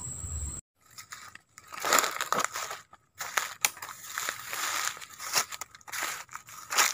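Footsteps crunching and rustling through dry leaf litter and grass, in irregular steps. For the first half-second a steady high insect trill is heard, then it cuts off.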